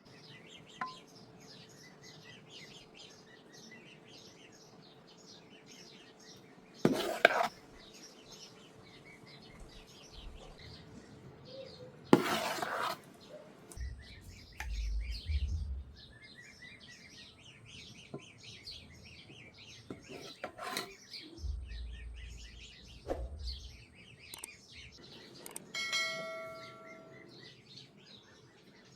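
Small birds chirping over and over, with two loud, short clattering noises about seven and twelve seconds in and low rumbles twice in the second half.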